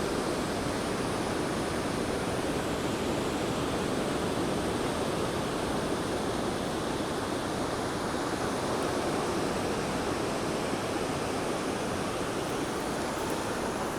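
Steady rushing noise of ocean surf breaking along a beach.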